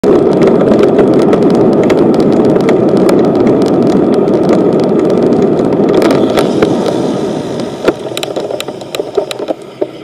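Wind buffeting the microphone and rolling road noise from a bicycle ridden at speed, with scattered clicks and rattles from the bike. The noise dies down from about seven or eight seconds in as the bike slows.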